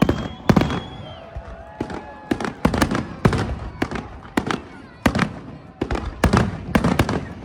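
Aerial fireworks going off in a fast, irregular run of sharp bangs, more than a dozen of them, with crackling between.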